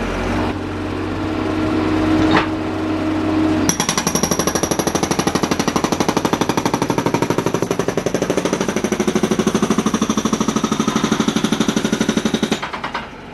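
Hydraulic concrete breaker hammering on driveway concrete in a fast even rattle of about ten blows a second, starting a few seconds in and stopping near the end. Before it starts, the machine's engine and hydraulics run steadily.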